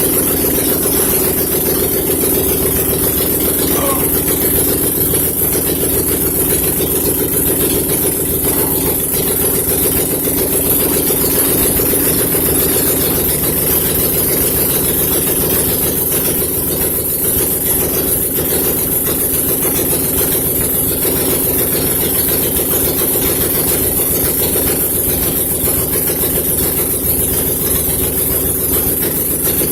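Car engine idling steadily and loud, running with its headers removed, so the exhaust comes straight out of the ports. A brief falling squeak is heard about four seconds in.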